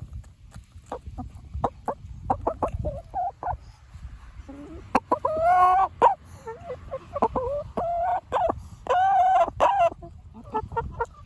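Chickens clucking: a string of short clucks, with two longer, louder drawn-out calls about halfway through and again near the end.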